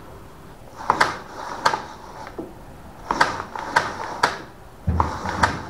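Chain of a TITAN TTL758CHN electric chainsaw being turned by hand around its guide bar to check the tension, giving a series of short, irregular metallic clicks and clatters. A dull thump comes about five seconds in.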